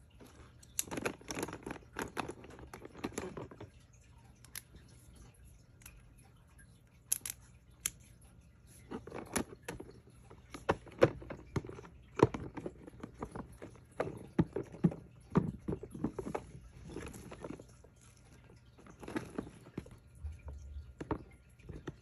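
Plastic fidget toys clicking and clattering against each other and the sides of a plastic storage bin as hands pick them up and sort them. The sound comes in several short bursts of sharp clicks separated by quieter pauses.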